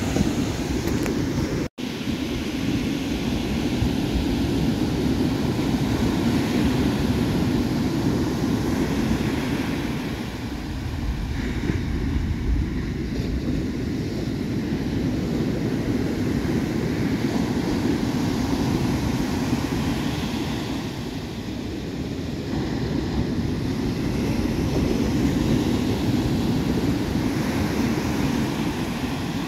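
Ocean surf breaking and washing up the beach, mixed with wind rumbling on the microphone; the rush swells and eases slowly over several seconds. The sound cuts out for an instant about two seconds in.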